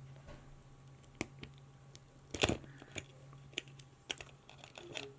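Irregular small plastic clicks and rattles from handling the opened Game Boy DMG-03 battery pack's case and parts, with a louder cluster of clicks about halfway through.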